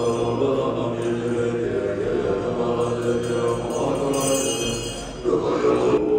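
Tibetan Buddhist monks chanting together in a steady, continuous group chant, swelling louder about five seconds in.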